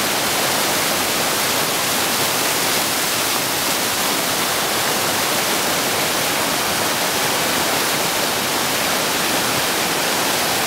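Muddy flash-flood water pouring over stepped rock ledges in a wide waterfall: an even, steady rush of falling water.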